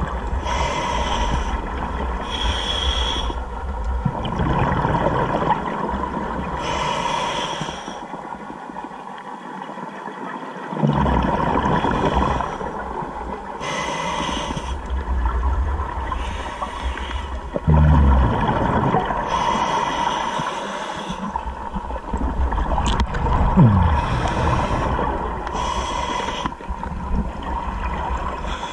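Scuba diver breathing through a regulator underwater: a hiss of inhalation about every five to six seconds, alternating with the low bubbling rumble of exhaled air.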